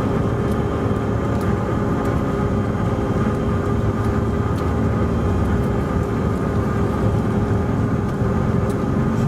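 Steady cabin noise of a Bombardier CRJ900 with its rear-mounted General Electric CF34 turbofans running, an even roar with steady hum tones and a few faint light ticks of cabin rattle.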